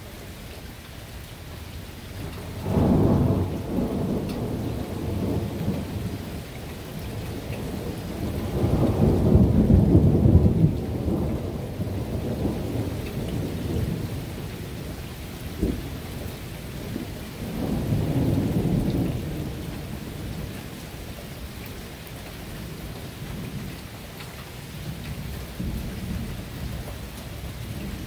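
Rolling thunder over steady rain: a clap about three seconds in that rolls on, a longer and louder rumble a few seconds later, and a third rumble past the middle.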